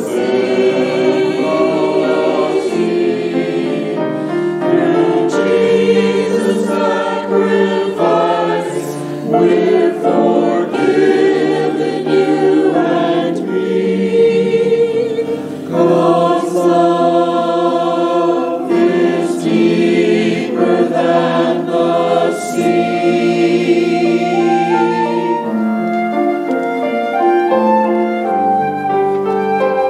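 Church choir singing a sending-out anthem, many voices holding chords together.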